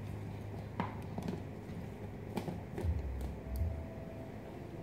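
A few faint plastic clicks and taps as the blade lid is screwed onto a personal blender's cup, with some dull low thumps around the middle.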